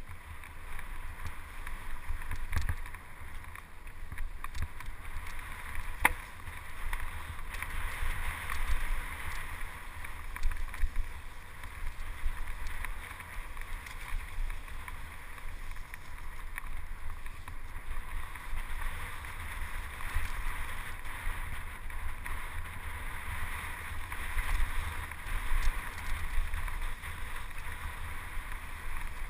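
Wind buffeting the microphone with the steady rush of mountain bike tyres rolling over a dirt trail during a fast ride, with one sharp knock about six seconds in.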